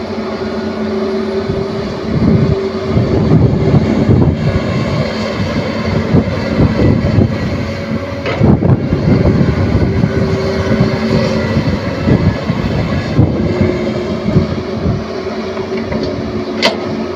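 Caterpillar 320D2 excavator's diesel engine running, with a steady hum and uneven louder surges through the middle. A short sharp click sounds near the end.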